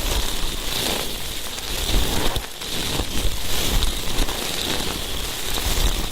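ASMR ear cleaning: an ear-cleaning tool scratching and rubbing close against the microphone, a continuous crackly rustle.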